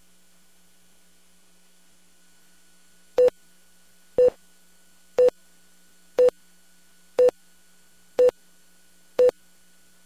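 Countdown-leader beeps on a broadcast tape: a short mid-pitched beep once a second, seven times, starting about three seconds in. A faint steady hum runs underneath.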